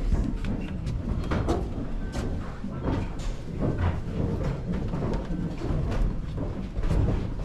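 Steady low rumbling noise with many short knocks and clicks scattered throughout.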